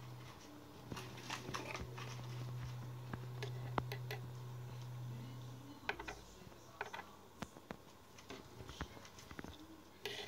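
Scattered light clicks and taps of metal tweezers against a wooden desktop as mealworms are picked up, over a low steady hum that stops about six seconds in.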